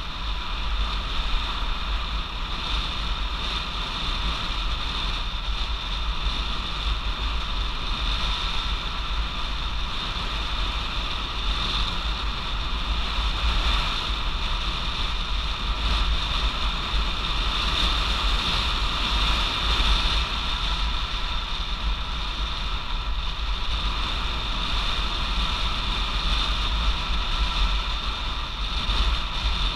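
Wind buffeting the microphone and road noise from a Stromer ST2-S electric bike riding steadily along a road: a constant low rumble with a steady high whine over it.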